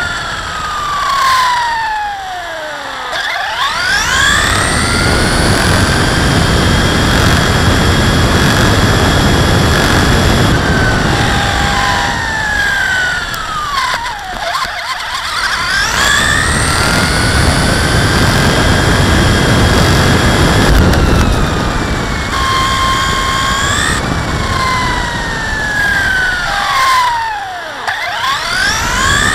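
Onboard sound of an HPI Blitz electric RC truck at speed: the motor and gear whine drops steeply as it slows, then climbs back up as it accelerates. This happens three times (near the start, about halfway, and near the end), with a steady high whine in between. A continuous rough rumble of tyres and wind runs underneath.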